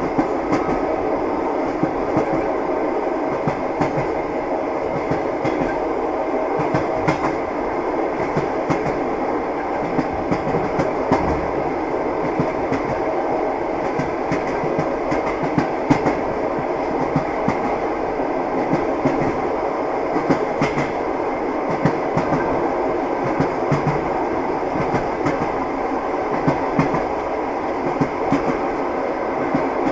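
Train wheels clacking over rail joints with a steady running rumble, with frequent short knocks throughout.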